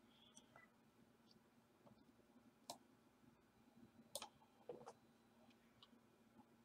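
Near silence broken by a few faint computer mouse clicks.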